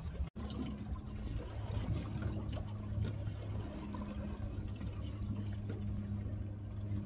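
Water lapping and sloshing against a boat's hull, over a steady low hum.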